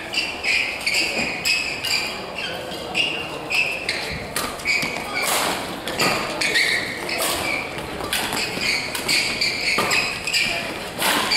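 Badminton rally: court shoes squeak again and again on the hall floor, and sharp racket strikes on the shuttlecock come roughly once a second through the middle and end.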